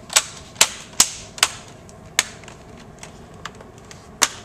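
Plastic screen bezel of a laptop being pressed back on, its clips snapping into place with a series of sharp clicks, about five in the first two and a half seconds and one more near the end.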